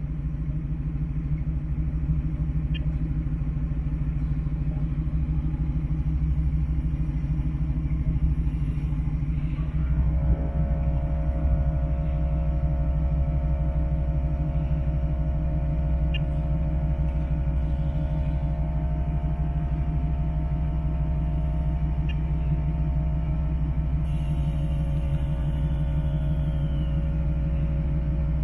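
1972 Chevy C10 pickup idling with a steady low rumble. About ten seconds in, the air-ride suspension's compressor switches on and adds a steady whine over the idle.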